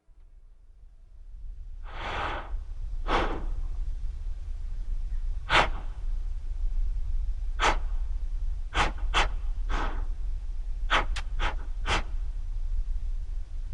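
A series of sharp, breathy gasps and exhales, about a dozen, some single and some in quick clusters, over a low steady drone that fades in at the start.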